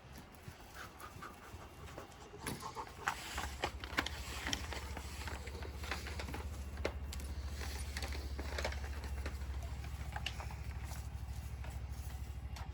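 A few clicks and knocks, then about three and a half seconds in a wood lathe comes up to speed and runs with a steady low hum that pulses quickly, with scattered sharp ticks over it.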